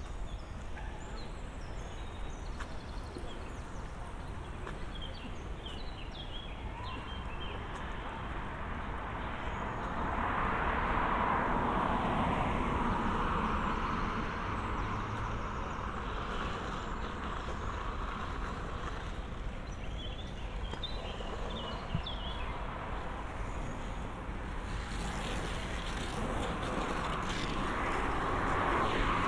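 Road traffic passing, with two vehicles swelling louder, the first about a third of the way in and the second near the end, and a few short bird chirps over the steady street background.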